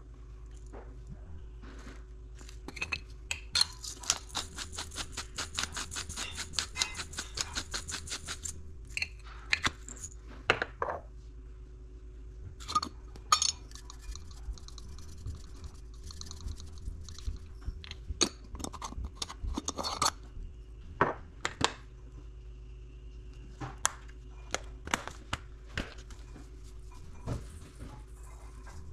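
Hand pepper mill being twisted, a rapid run of clicks lasting about five seconds, starting a few seconds in. It is followed by scattered taps and knocks as spice shakers are shaken over the bowl and set down on the countertop.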